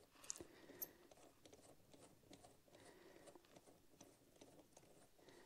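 Near silence with faint scattered small metallic clicks, a couple slightly sharper in the first second: the chain splitter tool being backed off and lifted from the motorcycle drive chain after pushing out the link pin.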